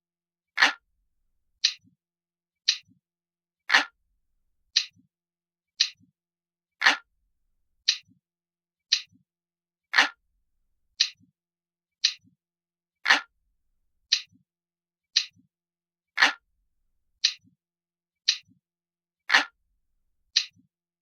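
Analog clock ticking once a second, every third tick louder and fuller, each tick trailed by a faint low knock.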